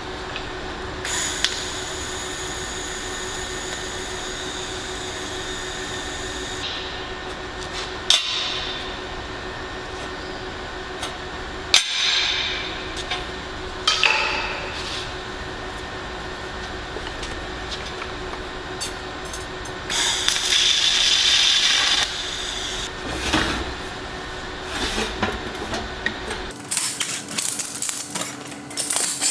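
Sharp metallic knocks and clinks from a thin-wall stainless steel pipe and flanged tee being handled and worked on a pipe stand, heard over a steady workshop hum. A loud hissing noise lasts about two seconds, some twenty seconds in, and near the end there is a quick run of small clicks.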